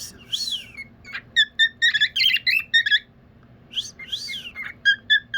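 A pet bird chirping in quick, short notes. A louder rising-and-falling call comes near the start and again about four seconds in.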